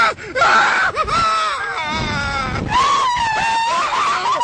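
Passengers on a slingshot reverse-bungee ride screaming and yelling. Near three seconds in one long high scream begins and is held.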